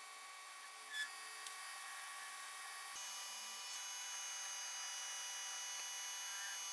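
Metal lathe running with a steady whine while turning a small metal workpiece. A brief sharp sound comes about a second in, and about three seconds in the whine shifts abruptly to a different, slightly louder pitch.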